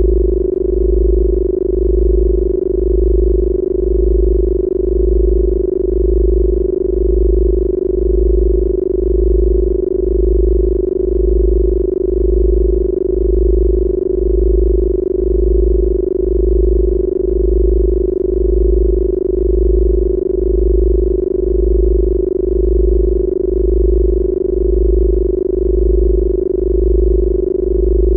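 Synthesized Rife healing-frequency tones: a steady, pure mid-pitched tone held over a deep bass tone that pulses on and off in an even beat.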